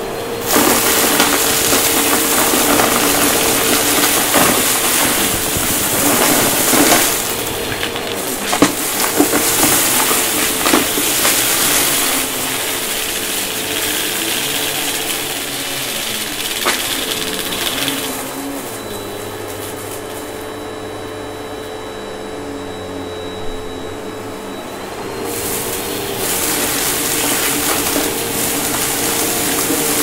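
Upright vacuum cleaner running on carpet: a steady motor hum under loud rushing air, with a few sharp clicks of debris being sucked up as it works through a pile of mess. About eighteen seconds in it turns quieter and duller for several seconds, then grows loud again.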